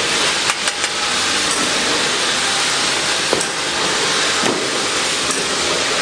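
Steady loud hiss of a running automatic bottle filling, plugging and capping machine, with a few light clicks about half a second in and again near the middle.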